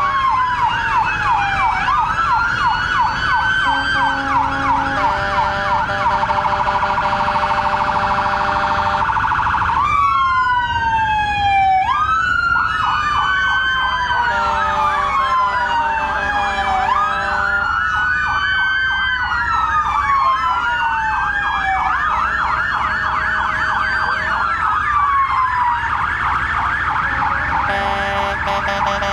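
Several emergency-vehicle sirens sounding together, overlapping slow wail sweeps that rise and fall every couple of seconds with fast yelping warbles. The fast warble drops out briefly about a third of the way through, leaving the slow wail, then returns.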